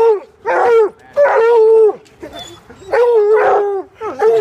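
Coonhound baying at a squirrel trapped in the sculpture: a run of about five loud, drawn-out bawling barks. Two of them, about a second in and about three seconds in, are held longer.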